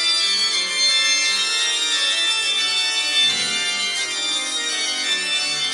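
Organ music playing: full chords of many held notes that shift from one chord to the next.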